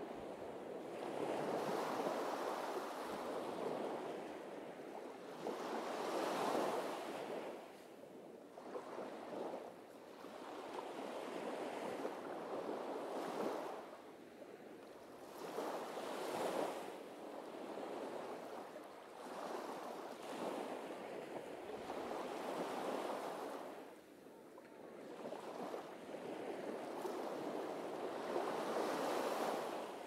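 Surf breaking and washing up a sandy beach, the noise of each wave swelling and fading every few seconds.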